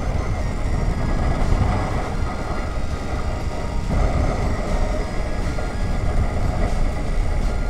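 Riding noise of a BMW F 850 GS motorcycle on the road, picked up by a helmet chin-mounted action camera: a steady low rumble of wind buffeting the microphone mixed with the bike running.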